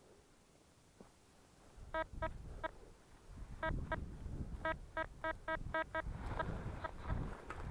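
Tesoro Outlaw metal detector giving about a dozen short, buzzy beeps in quick clusters as the search coil is swept back and forth over a buried metal target, over low rustling and scuffing of the coil through the ground cover.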